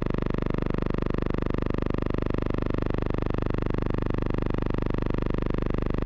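Steady buzz with many even overtones and a rapid regular pulse, electrical rather than live sound. Its tone changes abruptly just before the start and again about a second after the end, matching the cuts in the silent film's picture.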